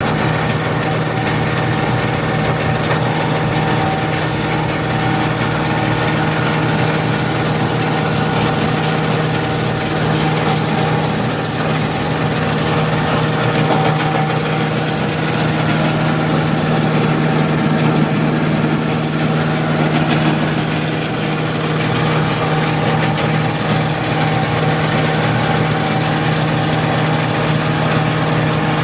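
Rice husk grinding mill (pulverizer) running steadily while grinding coarse rice husk, a loud even hum with a hiss over it.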